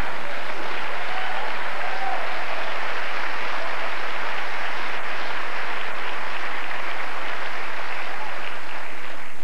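Theatre audience applauding, with some laughter mixed in. It is a long, steady round that stops near the end.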